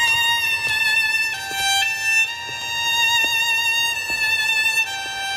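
Background score: a solo violin playing slow, long-held notes that step mostly downward, with one brief rise.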